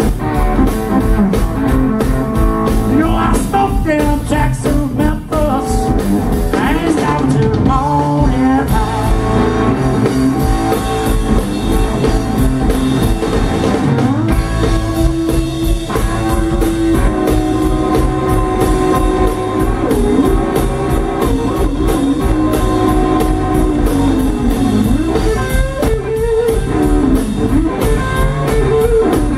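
Live blues band: electric guitar, electric bass guitar and drum kit playing together. The guitar bends notes in the first several seconds and holds one long sustained note through the middle.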